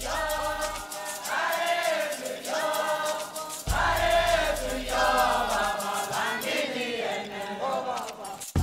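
Choral theme music: a choir singing long held notes, with a deep bass note underneath at times. It breaks off briefly near the end and starts again.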